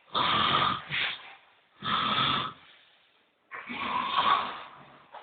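A person snoring: three rasping snores, each about a second long, with short pauses between.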